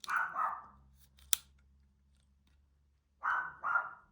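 The small scissors of a Leatherman Arc multitool snipping: two quick cuts in a row, a single sharp click about a second later, then two more quick cuts near the end.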